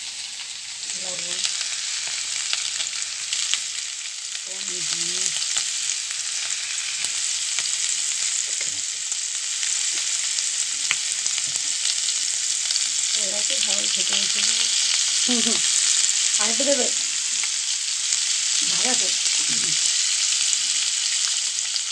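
Boiled baby potatoes frying in a kadai: a steady sizzling hiss.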